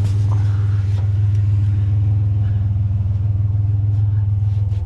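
Pickup truck engine idling steadily through Flowmaster mufflers, a low, even rumble.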